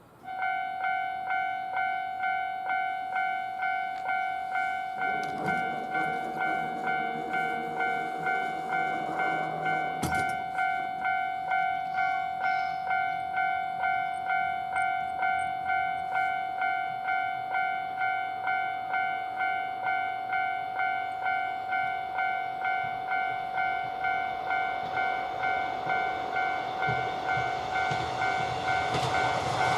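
Japanese level-crossing warning bell starting up and ringing its 'kan-kan' alarm, a two-note tone pulsing in a steady, even rhythm. A low hum comes in for a few seconds early on and a sharp knock sounds about a third of the way in. Near the end a rumble grows louder as the train approaches the crossing.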